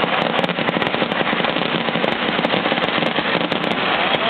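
Festival fireworks barrage: a dense, unbroken run of firecracker bangs and crackle, many reports overlapping with no pause.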